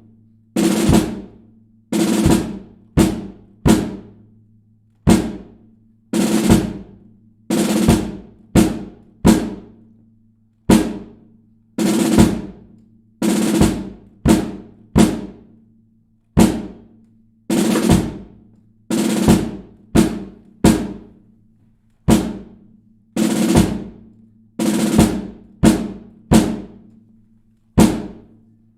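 Drum cadence on snare drum with some bass drum: sharp struck notes and short rolls in an uneven marching-style pattern, each ringing out and dying away, over a faint steady low hum.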